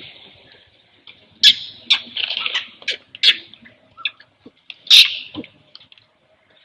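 Baby long-tailed macaque squealing in a series of short, sharp, high-pitched cries with gaps between them, the loudest about a second and a half and five seconds in.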